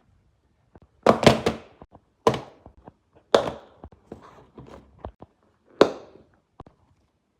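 A series of sharp knocks and thuds. The loudest come in a quick cluster about a second in, followed by single knocks about once a second and a few light clicks between them.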